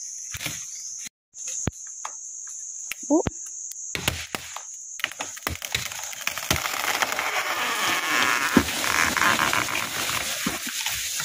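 Insects droning on a steady high note. From about halfway in, a growing rustle of leaves and branches with many small snaps and clicks covers it.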